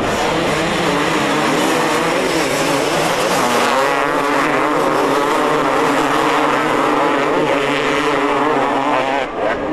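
A pack of two-stroke motocross bikes racing together, several engines revving hard at once, their pitches rising and falling as the riders accelerate out of a corner and up a hill.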